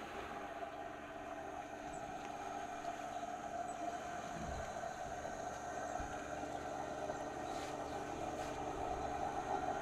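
A steady engine drone that grows gradually louder.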